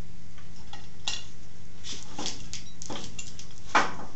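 Metal parts clinking and knocking as a steel rod is handled and fitted into the lathe's painted metal housing: about half a dozen sharp clinks, the loudest near the end.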